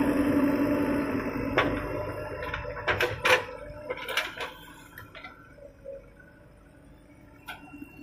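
The JCB 3DX backhoe's diesel engine running steadily fades away over the first couple of seconds. Then comes a scatter of sharp knocks and clinks, thickest from about one and a half to four and a half seconds in, with a few faint ones near the end.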